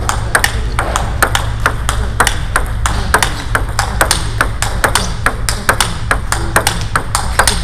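Table tennis rally: the ball clicking sharply off bats and table several times a second at an uneven pace, with further knocks from rallies at neighbouring tables.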